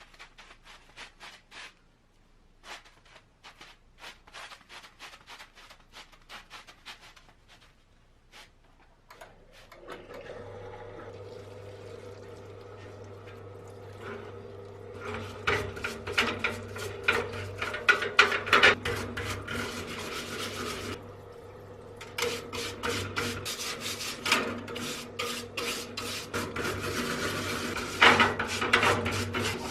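Light scattered clicks of parts being handled, then, about a third of the way in, a steady electric motor hum starts up. Dense rough rubbing and scraping strokes join it, typical of work on rusty metal parts.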